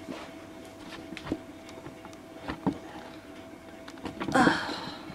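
Handling noise from a camera being adjusted by hand: a few soft knocks and taps, over a faint steady hum, with a brief voice sound about four seconds in.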